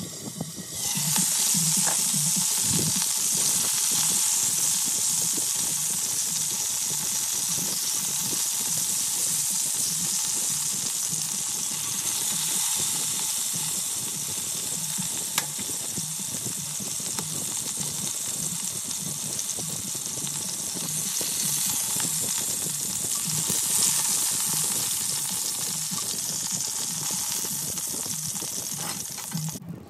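Pieces of oxtail browning in hot oil, a steady sizzle that starts about a second in and keeps going.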